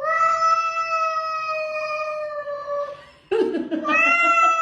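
A cat yowling in two long, drawn-out calls: the first holds a steady pitch for about three seconds and sinks slightly, and the second starts just after and rises into a high held note near the end.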